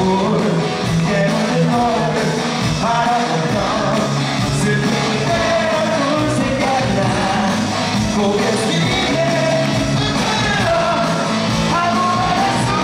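Live pop-rock band music with a male lead singer, played loud through a concert sound system.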